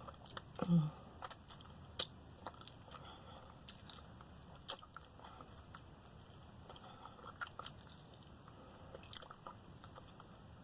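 Close-miked chewing and biting of fried chicken, with scattered crunches and wet mouth clicks. A brief hummed vocal sound comes just under a second in.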